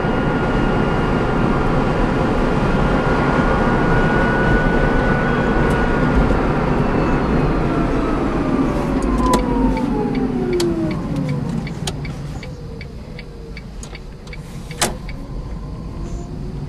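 Smart electric car's drive motor whining over tyre and road noise inside the cabin; about halfway through the whine falls steadily in pitch and the noise dies down as the car slows under its regenerative braking. A few sharp ticks follow near the end, one louder than the rest.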